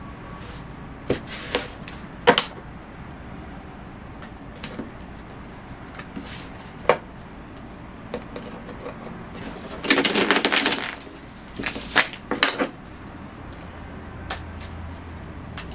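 Tarot cards handled and shuffled on a wooden table: scattered card taps and snaps, then a dense run of rapid card flicks lasting about a second, about ten seconds in, and a few more snaps soon after.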